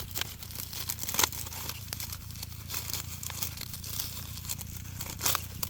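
Dry corn leaves and stalks rustling and crackling, a dense run of short crinkling snaps over a low steady rumble.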